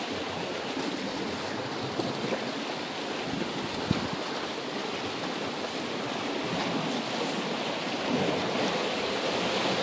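Sea surf washing against a rocky shore, a steady rushing noise with wind on the microphone. Two brief knocks stand out, about two and four seconds in.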